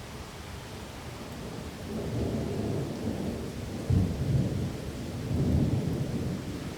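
Thunder rumbling over steady rain. The rumble builds about two seconds in, jumps to a sudden loud peak near four seconds, and swells again before fading.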